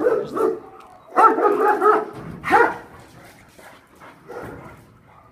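Boxer dog barking and whining in several short bursts, the loudest between one and three seconds in.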